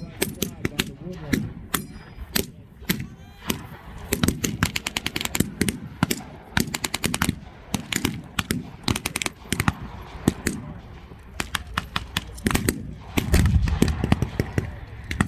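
Blank-firing gunfire from a WWII battle reenactment: scattered rifle shots and rapid machine-gun bursts, with a heavier, deeper bang about 13 seconds in.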